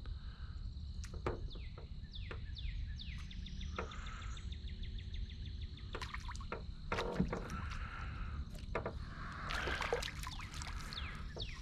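Wind rumbling on the microphone, with scattered sharp clicks and short runs of fast, even ticking over it.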